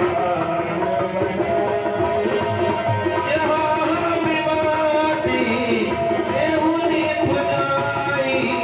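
Devotional kirtan music: held melody notes over a steady, even beat of jingling, tambourine-like percussion, with little or no clear singing.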